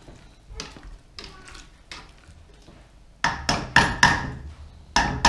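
Spoon knocking and scraping against a large steel stockpot while stirring a thick stew. A few light clacks come first, then a quick run of louder clacks about three seconds in and again near the end.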